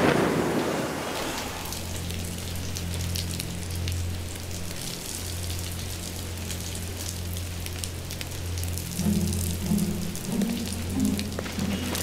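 Steady rain pattering, with the tail of a thunder roll dying away in the first second or so. A low sustained music drone runs underneath, and pulsing low musical notes come in about nine seconds in.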